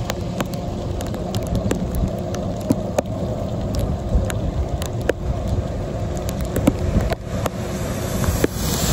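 Bicycle rolling along wet pavement in steady rain: a steady low rumble of tyres and wind on the microphone, dotted with frequent sharp ticks and clicks. Near the end the hiss of an oncoming semi truck's tyres on the wet road rises.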